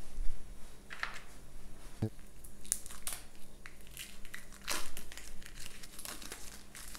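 Packaging crinkling and rustling in short bursts as board-game cards and components are unpacked and handled by hand, with a light knock about two seconds in.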